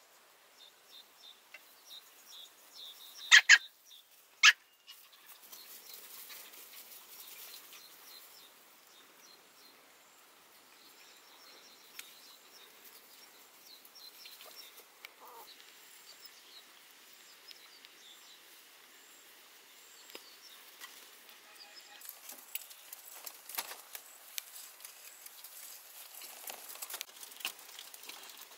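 Puppies playing: two short, sharp, high-pitched yelps about three and four and a half seconds in, then faint scuffling. In the last several seconds comes a busy patter of small paws and claws clicking on a slatted bamboo floor.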